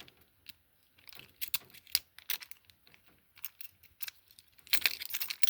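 Small metallic clicks and scrapes of a lock pick working inside a padlock, sparse at first. A denser, louder run of metal clinks comes near the end as the lock is opened.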